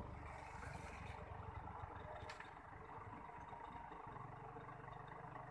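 Heavy truck's diesel engine running at low speed, faint and distant, as the truck creeps across a narrow steel truss bridge under a heavy load. A single short click about two seconds in.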